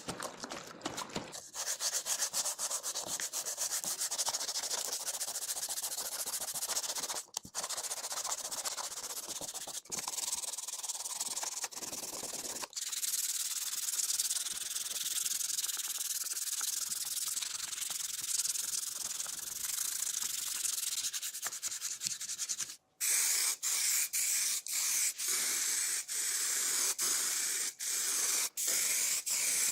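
Sanding of the dirt bike's plastic body parts: a steady, scratchy, high-pitched rubbing noise, broken off abruptly a few times where shots change.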